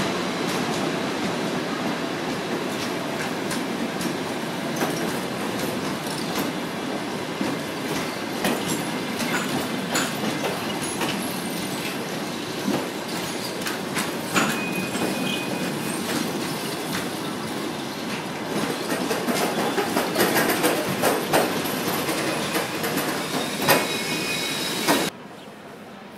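Passenger coaches rolling past, wheels clicking over rail joints, with short high wheel squeals now and then. The sound cuts off suddenly near the end, leaving quieter station ambience.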